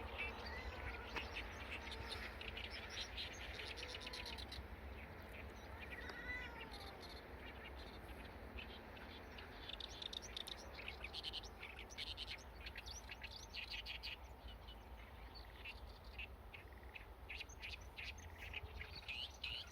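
A chorus of small birds chirping and calling, many short quick chirps overlapping with a few gliding calls, busier from about halfway on, over a steady low rumble.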